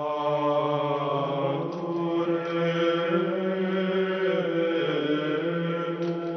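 Slow unaccompanied liturgical plainchant sung by male voice, holding long notes that move slowly from pitch to pitch.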